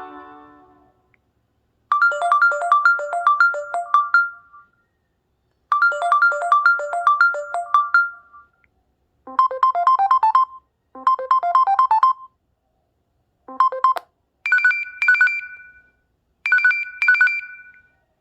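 An LG G5 smartphone playing one of its stock ringtones: a melody of quick, clear high notes in short repeated phrases with brief pauses between them, closing with two held two-note chimes. The end of the previous guitar ringtone fades out in the first second.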